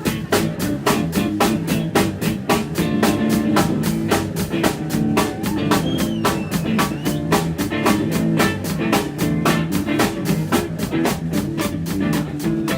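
Live band playing an instrumental passage: a drum kit keeps a steady, fast beat under guitar and bass.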